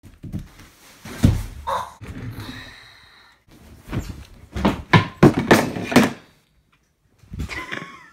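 A run of heavy thumps and bangs in a small room: one loud bang about a second in, then a quick cluster of knocks between about four and six seconds in.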